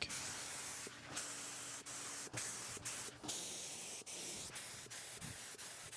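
HVLP turbine spray gun spraying thinned paint: a steady air-and-paint hiss, briefly broken off several times.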